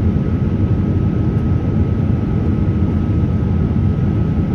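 Steady rumble inside a passenger jet cabin: engine and airflow noise, with a faint steady high tone running through it.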